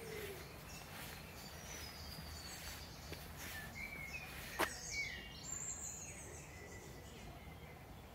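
Woodland birds calling, with short chirps and gliding whistled notes now and then over a low steady background rumble. A single sharp click about four and a half seconds in.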